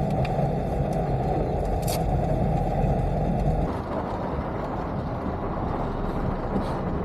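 Steady noise heard from inside a car in slow traffic, engine and road noise, changing abruptly about three and a half seconds in.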